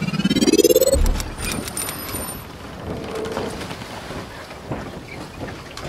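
Logo intro sound effects: a rising pitched whoosh that ends in a low thud about a second in, then a brief high shimmer over a hiss of noise with scattered clicks.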